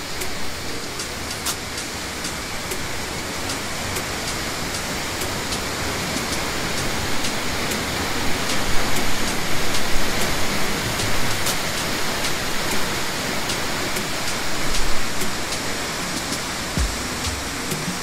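Waterfall rushing steadily as a broad, even hiss, swelling a little around the middle, with a few low thumps near the end.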